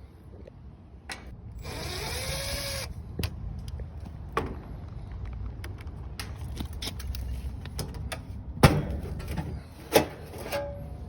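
A cordless drill/driver runs for about a second, its whine rising as it spins up. Later come a few sharp knocks and clanks, with a steady low rumble underneath throughout.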